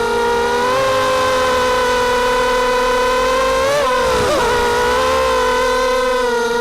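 Brushless motors and 5-inch propellers of an FPV250 mini quadcopter whining steadily as it flies. About four seconds in, the pitch briefly dips and wobbles as the throttle changes, then settles back to a steady whine.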